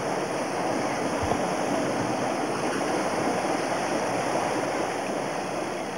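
River rapids rushing: a steady, even sound of fast white water.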